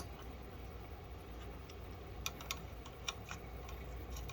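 A few faint, scattered clicks and ticks of a screwdriver and small screws being handled while a cooling fan is fitted, over a low steady hum.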